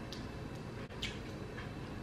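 Person eating crab with her hands: two faint short clicks of chewing and lip smacking, about a second apart, over low room noise.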